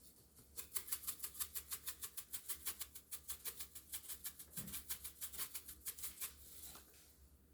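Rapid, even run of light, sharp taps, about seven a second, lasting about six seconds before it stops.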